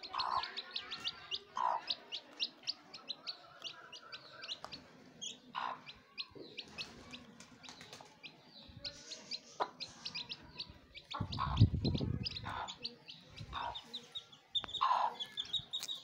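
Chicks peeping rapidly and continuously while a mother hen gives low clucks now and then. A low rumble lasting about a second comes a little past the middle and is the loudest moment.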